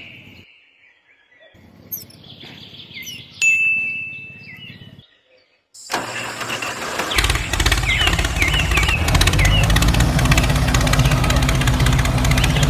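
Small birds chirping over a faint low hum. About six seconds in, a tractor engine sound starts and settles into steady, loud running with a low drone, while chirps carry on over it.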